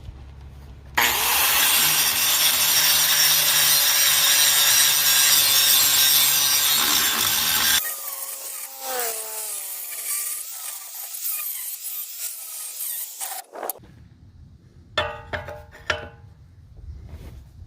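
Angle grinder cutting into steel for about seven seconds, then switched off and spinning down with a falling whine. A few sharp metal knocks follow near the end.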